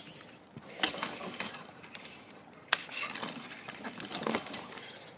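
Metal clinking and rattling of a wire cage trap as a raccoon is put into it, with sharp knocks about a second in and near three seconds.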